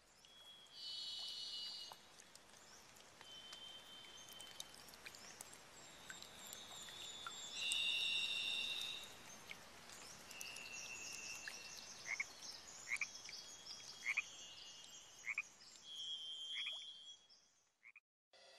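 Faint frogs calling: high trills of about a second each, then from about twelve seconds in a run of short rising peeps roughly a second apart. The calls stop suddenly near the end.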